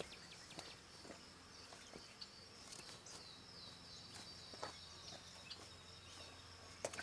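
Faint outdoor ambience: a high, steady insect-like buzz with a few short falling chirps about three seconds in, and scattered small clicks.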